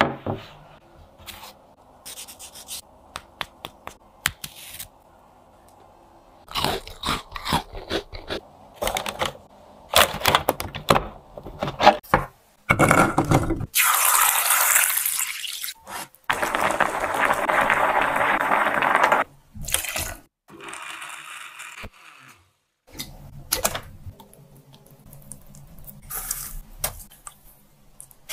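Scattered clicks and knocks of kitchen handling, then water pouring into a metal pot of chestnuts for about three seconds, the loudest sound, followed by a second similar rushing stretch of about the same length.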